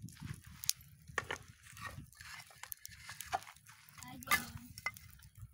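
Scattered clicks and knocks of firewood being handled and laid on a burning campfire, with one sharp, louder knock about four seconds in.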